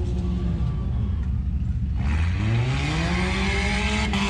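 Nissan enduro race car's engine, heard from inside the cabin, running at low revs and then accelerating about halfway through, its pitch climbing quickly and then holding steady.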